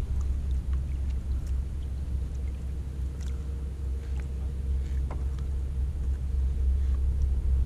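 Steady low rumble on the microphone, with a few faint clicks and taps as gloved hands work a hook out of a caught fish.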